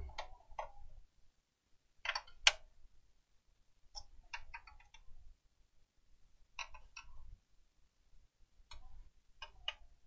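Light clicks and taps in short clusters every second or two, from a screwdriver and small screws on the PlayStation 4's metal board shield as its screws are taken out.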